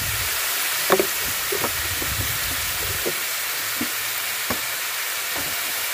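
Catfish steaks and pork frying in a steel wok with a steady sizzle. A handful of sharp clicks cut through it, the first and loudest about a second in.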